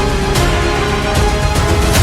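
Background music: a track with strong bass, held tones and a recurring percussive beat.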